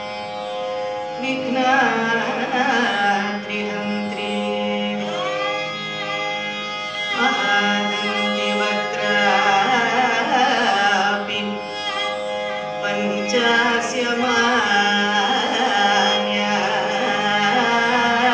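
Carnatic classical music: a woman singing with gliding, ornamented phrases, with violin accompaniment over a steady tambura drone.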